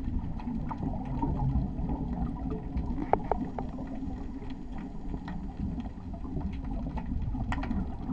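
Underwater ambience: a steady low rumble with scattered sharp clicks, a short run of them about three seconds in and another near the end.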